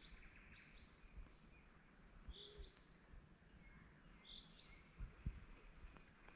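Faint birdsong: a short high chirp repeats about every two seconds among a few thinner whistles. A soft low thump comes about five seconds in.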